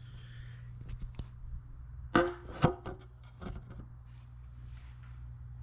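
Hand tools and metal parts clinking and knocking during work on a motorcycle: a few light clicks, then two louder metallic clanks with a brief ring about two seconds in, over a steady low hum.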